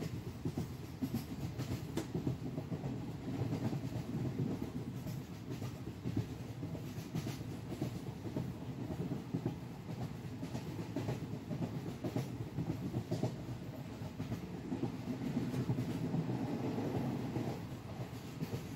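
A train running on rails: a steady rumble with many small clicks of the wheels on the track.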